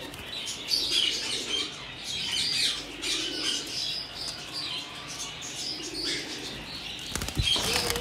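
Diamond dove's wings flapping as it is let go from the hand into its cage, over the steady chirping of many small aviary birds. A few sharp knocks come near the end.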